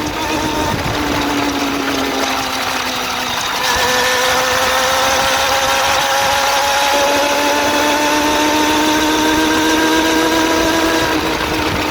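Suzuki GSX-R400 inline-four engine running with a ticking from the motor, which the owner suspects comes from the valve shims or the cam timing chain. The engine speed sags a little, then steps up and gets louder about four seconds in and creeps slowly higher.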